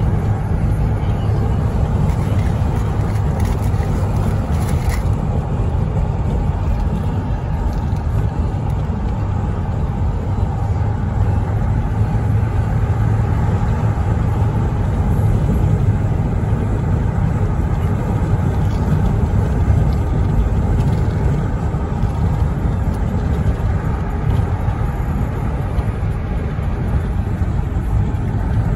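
Steady road and engine noise of a moving car heard from inside the cabin: a continuous low rumble with no breaks.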